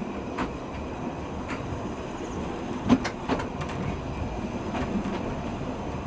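Narrow-gauge train running along the line: a steady rumble with irregular sharp clicks of the wheels over the rail joints, the loudest about three seconds in.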